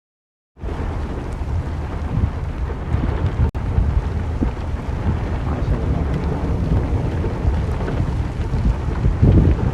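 Heavy rain in a storm, with a deep steady rumble of thunder and wind beneath it. It cuts in suddenly about half a second in and drops out for an instant at about three and a half seconds.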